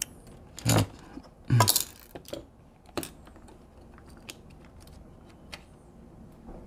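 Small clicks and taps of tools and small metal parts handled on a workbench during circuit-board soldering, with two louder knocks about a second in and just under two seconds in.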